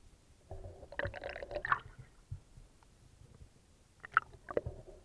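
Water splashing and gurgling around a submerged camera, with knocks, in two bursts about three seconds apart.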